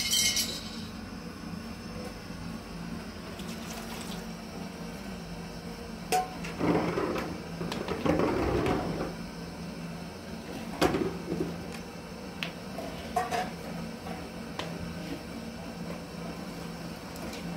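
Paintbrush working paint onto a steel door frame: scratchy brushing strokes, with a few sharp clicks of the brush or container against the metal, over a steady low hum.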